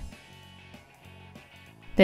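Quiet background music, a few soft sustained notes.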